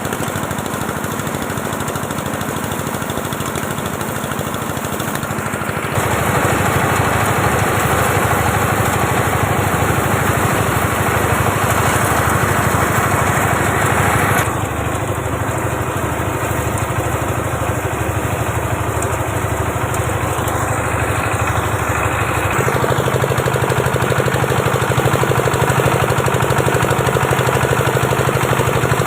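A small engine running continuously with a fast, even beat. It grows louder about six seconds in, eases back about halfway through, and changes note again later, as if its load were changing.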